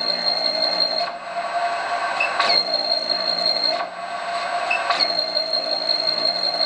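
Servomotor buzzing, with a high steady whine that cuts out about a second in and comes back with a short sweep, repeating roughly every two and a half seconds.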